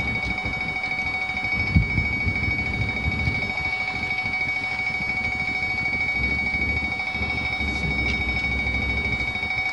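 A vehicle driving slowly, with a low engine and road rumble under a steady high-pitched tone. There is a single knock about two seconds in.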